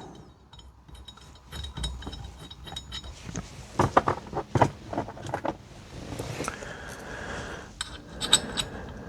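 Small steel hex bolts and an Allen key clinking and scraping as the bolts of a steering wheel hub are started by hand, loosely; scattered light clicks with louder clusters of clinks about four seconds in and again near the end.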